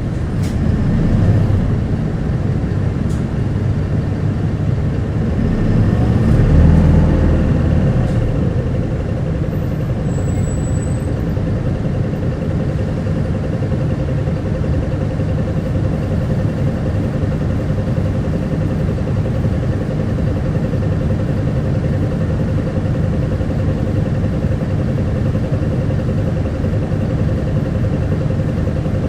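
Running sound of an Isuzu Erga city bus under way: steady engine and road noise, with a louder low swell about six seconds in, then an even run with a faint steady whine.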